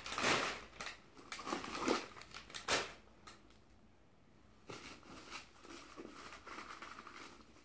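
Packing stuffing crinkling and rustling as it is pulled out from inside a new leather handbag, in irregular bursts for the first few seconds, a short quiet pause, then lighter rustling again.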